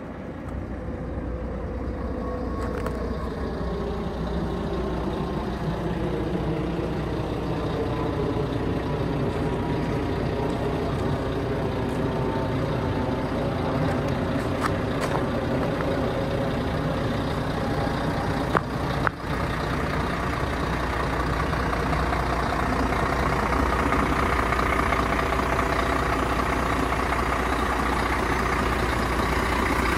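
Scania P114 380 truck's diesel engine idling. Its pitch drops and settles over the first few seconds, then runs steadily, with a short knock about two-thirds of the way through.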